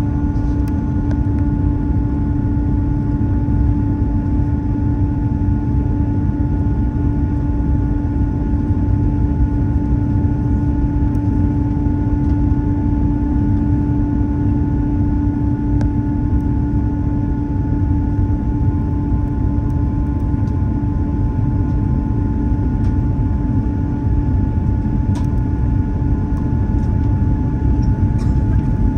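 Steady cabin noise inside a jet airliner descending on approach: a deep, even rush of airflow and engine noise with a constant hum tone over it.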